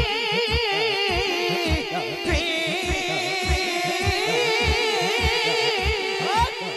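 A man singing a naat, holding one long wavering note between lines, over a steady low thump about twice a second.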